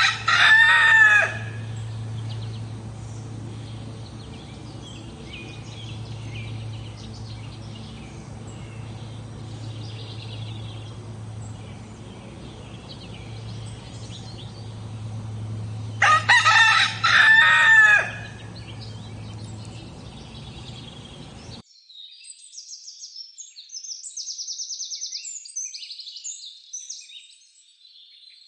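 Rooster crowing twice, once right at the start and again about 16 seconds in, each crow loud and drawn out, over a steady low hum. About 22 seconds in the sound cuts off abruptly to quieter, high-pitched chirping.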